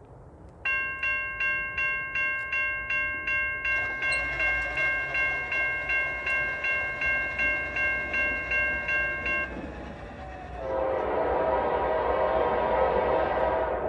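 A railroad grade-crossing bell rings in quick, even strikes, about three a second, for roughly nine seconds, then stops. A little later a locomotive's multi-chime air horn sounds one long chord of several notes for about three seconds.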